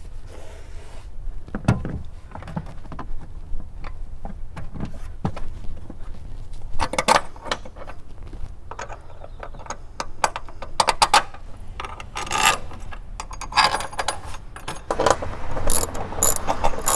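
Steel MOLLE side panel being set in place and its bolts tightened with a ratchet wrench: scattered clinks and knocks of metal parts, with bursts of ratchet clicking in the second half.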